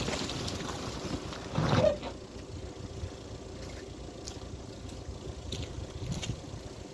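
A small hatchback car driving away along a muddy track, its engine sound fading, with a short louder surge about two seconds in, then faint and steady.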